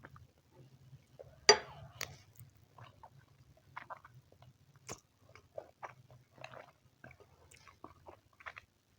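Close-miked eating: irregular wet chewing and mouth smacks, with one sharp, loud click about a second and a half in.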